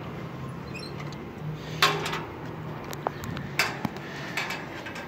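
Street background with a low engine hum and a few sharp clicks or knocks, the loudest about two seconds in.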